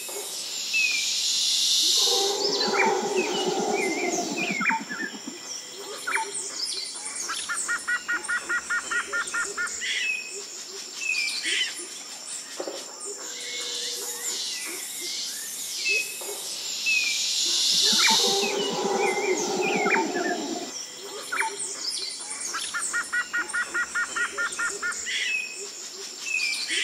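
Forest ambience of birds chirping and calling, including a rapid trill. The same sequence of calls comes round again about sixteen seconds in, as a repeating loop.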